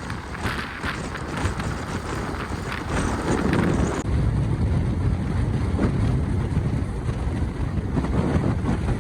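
Strong wind buffeting the microphone in gusts, a steady low rumble, with an abrupt change in the sound about four seconds in.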